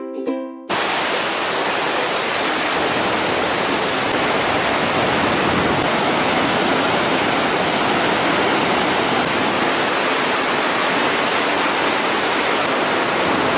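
Water rushing over rocks in a wide river waterfall and its rapids, a steady, even rush. It starts abruptly less than a second in, as a few plucked music notes cut off.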